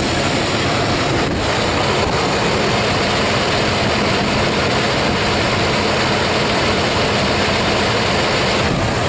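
1995 GMC Suburban's V8 engine idling steadily just after start-up, running rough enough to shake the whole truck badly. Wind noise on the microphone runs under it.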